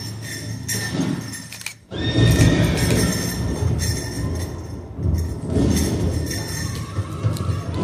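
Sound-effects track of horses neighing and hooves galloping, starting suddenly after a brief near-silent drop about two seconds in.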